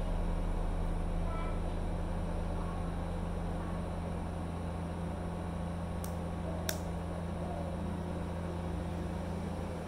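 Steady low hum with a haze of background noise, with two short clicks about six and seven seconds in.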